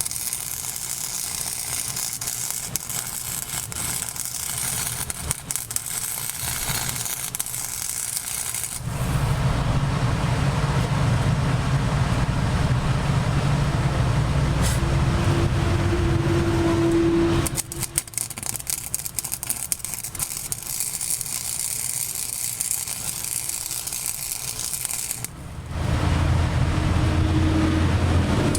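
Welding on a steel transaxle housing: a steady crackling hiss from the arc in two long stretches, alternating with a louder low machine rumble with a steady hum, starting about nine seconds in and again near the end.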